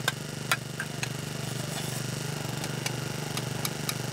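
An engine running steadily with a low, even hum, and scattered sharp clicks over it, the loudest about half a second in.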